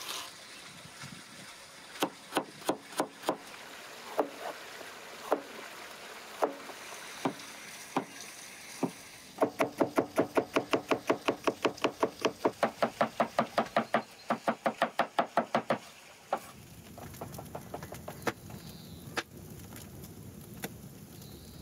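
Cleaver chopping vegetables on a wooden cutting board. First come a dozen separate knocks as carrot is cut, then fast steady chopping at about five strokes a second through onion, which stops about sixteen seconds in. After that, a wood fire crackles with a low rumble.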